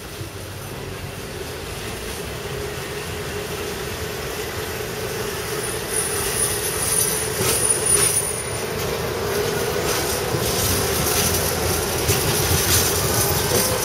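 Articulated electric tram approaching and passing close by, growing louder as it nears: a steady rumble of wheels on rail with a hum under it, several clicks over rail joints about halfway through, and a thin high wheel squeal at the same time.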